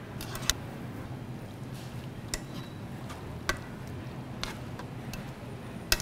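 Metal tongs stirring spinach in a saucepan, clicking against the pan a few times at irregular intervals, over a low steady hum.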